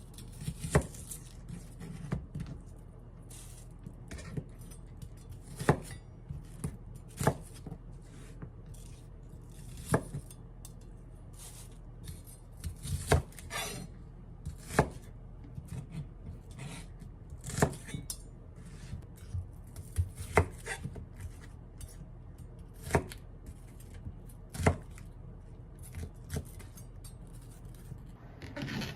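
Knife knocking through food onto a cutting board in single, unhurried cuts, irregularly spaced a second or two apart.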